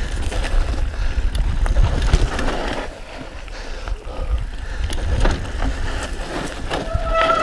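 Mountain bike riding fast down a dirt singletrack: wind buffeting the camera microphone, tyres rolling over dirt, and the bike rattling and clicking over bumps. Near the end a steady high-pitched squeal sets in.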